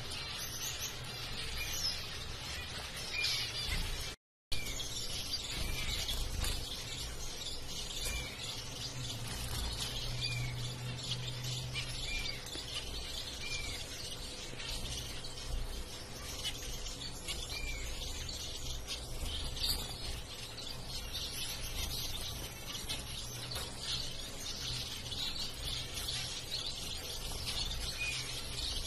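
Zebra finches calling in a cage: a busy chatter of short chirps, with short arched call notes repeating about once a second over a low steady hum. The sound drops out briefly about four seconds in.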